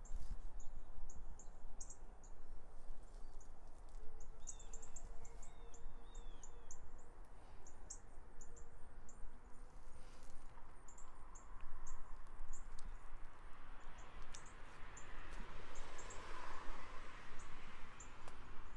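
Outdoor ambience with birds chirping: many short high notes throughout and a few sliding call notes about five seconds in, over a low rumble. A broad rushing sound swells and fades over the last few seconds.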